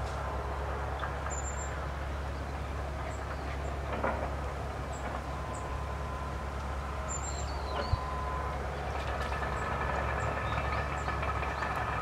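Steady low rumble of distant traffic, with faint, short high bird chirps about once a second and a couple of soft knocks. A steadier engine drone joins about nine seconds in.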